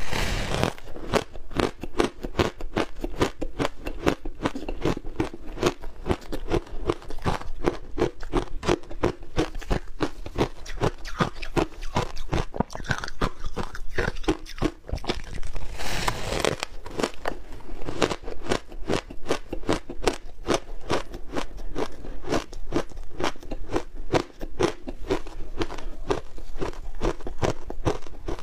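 Crunching of frozen matcha and milk-powder shaved ice being bitten and chewed: rapid, continuous crunches, with louder bites at the start and again about halfway through.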